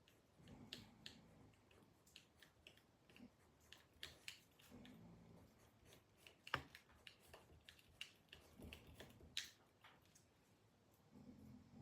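A man snoring faintly: low, buzzing breaths that recur about every three to four seconds, with scattered light clicks in between.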